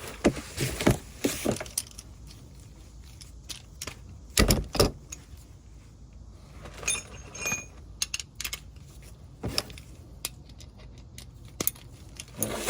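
Metal hand tools clinking and clattering, with two louder knocks about four and a half seconds in and a brief metallic ring a few seconds later.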